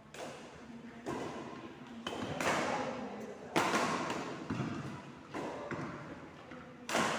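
A ball being hit again and again in a large echoing indoor court, about eight sharp knocks at uneven intervals, each with a short ringing echo.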